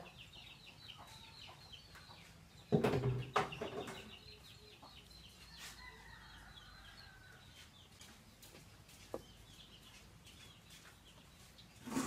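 Chickens clucking in the background, with a brief, louder clatter of handling about three seconds in.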